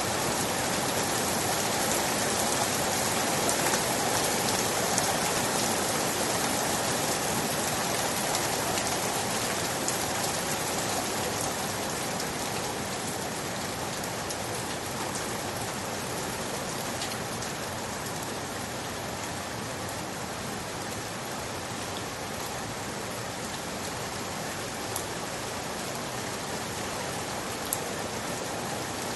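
Steady rain falling, a dense even hiss of drops with a few sharper single drops standing out, easing slightly in loudness over the stretch.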